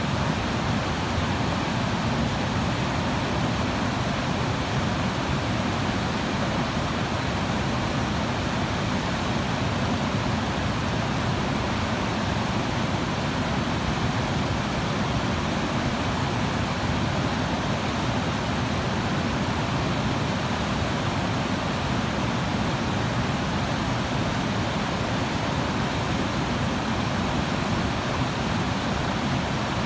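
Rapids of a rocky mountain river rushing steadily over boulders, an even, unbroken wash of water noise.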